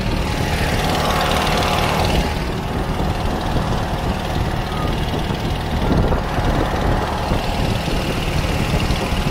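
An 18 hp Briggs & Stratton twin-cylinder lawnmower engine, fitted to a 40 hp Mercury outboard lower unit with its exhaust run down into the water, running steadily under load as it drives a jon boat along. A rush of wind and water noise sits over the engine, strongest in the first couple of seconds.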